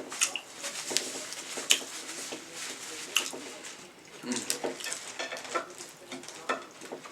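Close-up eating sounds: sharp clicks and crackles of king crab leg shells being handled and picked apart, mixed with wet chewing.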